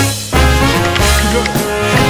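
Instrumental background music, with a strong bass line.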